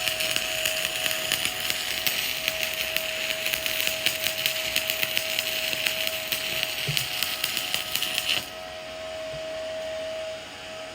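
Stick-welding (SMAW) arc crackling steadily as a bead is run overhead, stopping abruptly about eight seconds in. A thin steady tone continues under it and fades out shortly after.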